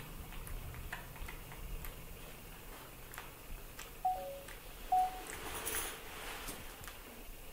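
Two short squeaks from a young animal, about four and five seconds in, the first dropping in pitch, over faint scattered clicks.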